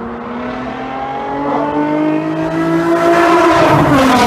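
Nissan 350Z's 3.5-litre V6 through a single-exit Soho exhaust with resonated test pipes and Y-pipe, accelerating toward and past under a road bridge. The engine note rises steadily in pitch and gets louder, then drops in pitch as the car passes near the end.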